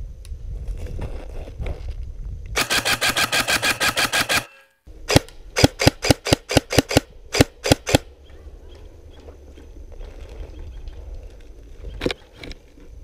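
M4-style airsoft electric gun firing a rapid, evenly spaced burst of about two seconds, then about a dozen separate shots in quick succession. A single shot follows near the end.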